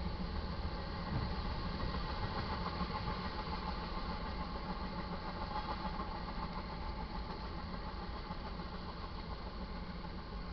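Car engine idling steadily, heard from inside the cabin as a low, even rumble.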